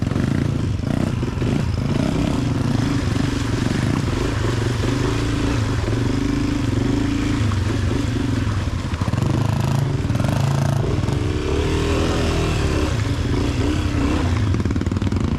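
Dirt bike engine running while riding a trail, its revs rising and falling with the throttle.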